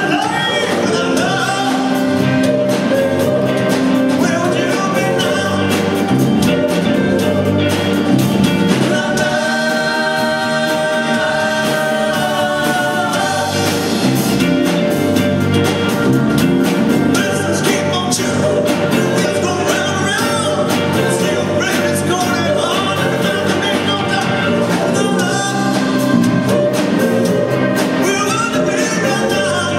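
A live rock band plays with a male lead singer, electric guitar, drums and keyboards. About ten seconds in there is a stretch of long held notes.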